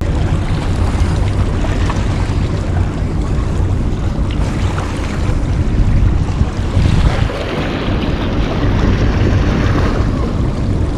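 Wind blowing across the microphone, a loud, steady rushing noise with a heavy low rumble.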